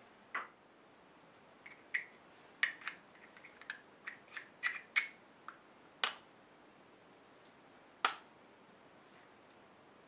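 Small metal parts of an old lighter clicking and tapping together as they are handled in gloved hands: irregular light clicks, many in the first six seconds, then one more a couple of seconds later.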